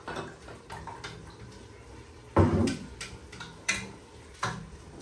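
Glasses and kitchenware clinking and knocking as they are handled and set down on a counter. About eight separate knocks, the heaviest a dull thud about two and a half seconds in.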